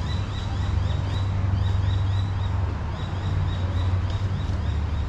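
A bird calling in runs of short, high, downward-sliding chirps, about three a second, over a steady low rumble.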